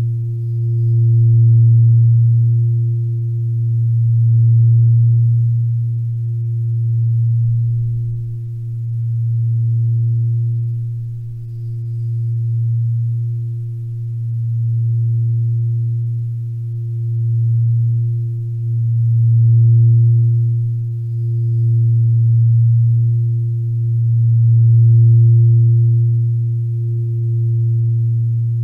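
Low sustained drone tone of relaxation background music, with a fainter higher overtone, swelling and fading in slow waves about every three seconds.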